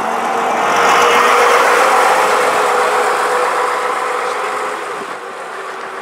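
1971 Southdown Bristol VRT double-decker bus driving past close by and pulling away, its diesel engine loudest about a second in, then fading as the bus moves off.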